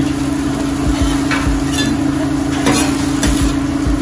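Sliced onions caramelizing with brown sugar and soy sauce in a frying pan over low heat, sizzling steadily as they are stirred. A spoon scrapes and knocks against the pan a few times, over a steady low hum.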